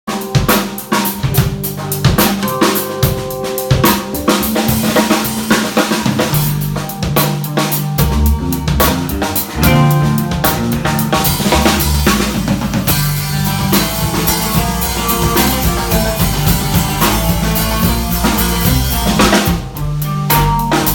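Norteño band playing an instrumental passage, the drum kit's bass drum, snare and rimshots prominent over a steady bass line and other pitched instruments.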